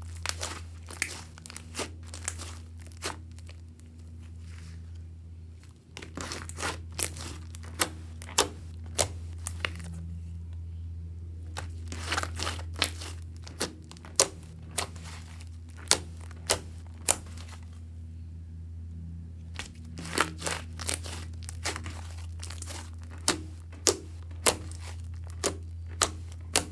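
Thick soft-clay slime being kneaded, squeezed and poked by hand, giving sharp crackling pops and clicks as trapped air bursts. The pops come in runs, with lulls about five seconds in and again about eighteen seconds in, over a steady low hum.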